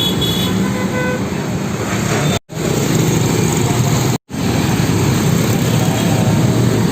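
Steady roadside traffic noise from heavy vehicles such as trucks and buses, with engines running. The sound cuts out completely twice, briefly, near the middle.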